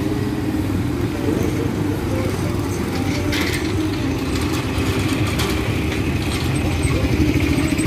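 Street traffic: the engines of auto-rickshaws, motorcycles and cars running and passing by as a steady low rumble, with voices in the background.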